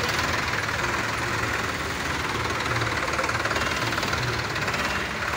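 Diesel engines of several Sonalika tractors running steadily at low speed, the nearest one close by with a low, even chugging.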